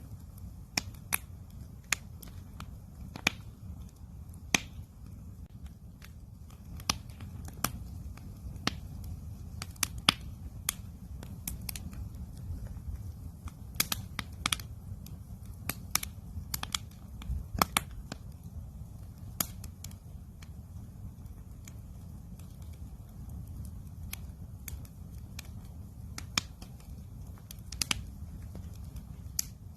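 Wood campfire crackling: irregular sharp snaps and pops, some in quick clusters, over a steady low rumble of the burning fire.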